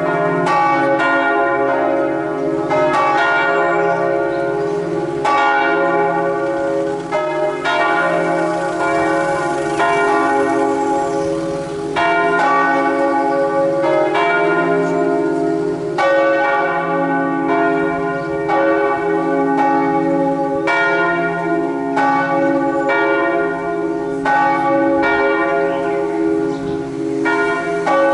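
Several church bells pealing at midday, struck again and again in overlapping succession. Their ringing overtones blend over a sustained low hum.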